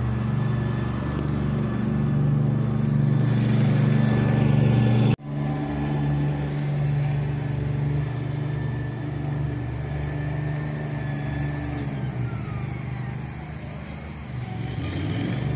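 Steady mechanical drone of the balloon's tether winch reeling the cable in. There is a sharp drop-out about five seconds in, and a falling whine near the end as the machine changes speed.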